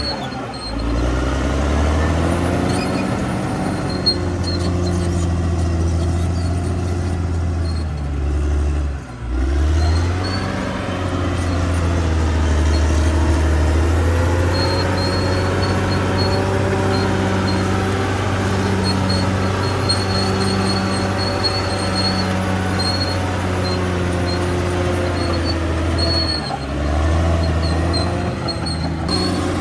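CAT D6R XL bulldozer's diesel engine running under load, a steady low drone whose pitch drops and climbs back up three times.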